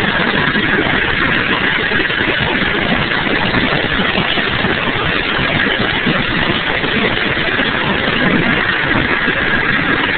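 UH-60 Black Hawk helicopter in flight, heard from the gunner's position inside the cabin: the loud, steady din of its twin turboshaft engines and main rotor.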